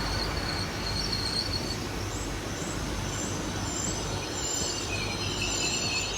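A passenger train running on the rails with a steady rumble and faint, high wheel-squeal tones that come and go.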